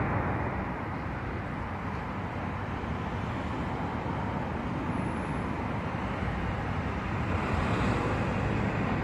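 Steady rumble of road traffic from a nearby street.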